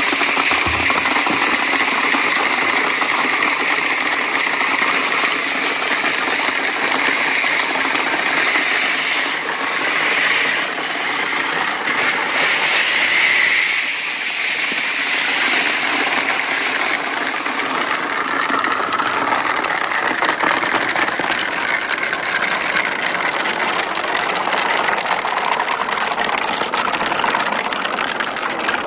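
Marbles rolling and clattering down a marble run track: a steady, dense rattle of many small clicks.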